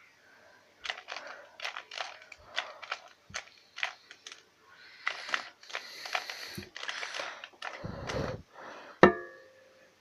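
A plastic 2x2 Rubik's cube being turned quickly in the hands: irregular bursts of clicking and clacking as its layers rotate. Near the end comes one louder, sharp click that rings briefly.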